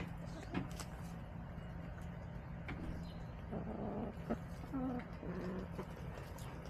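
Backyard hens clucking softly, with a run of short calls about halfway through, and a few sharp taps of pecking close by.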